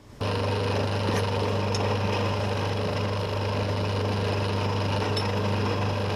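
An electric power tool starts about a quarter second in and runs steadily with a low hum and a grinding noise, working on a metal-asbestos gasket.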